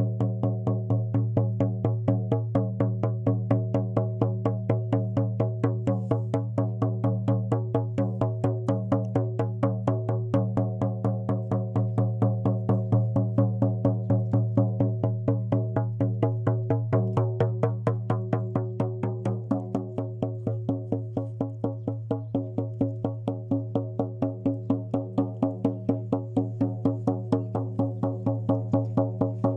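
Music: a steady low drone with shifting overtones, plucked or struck evenly about three times a second.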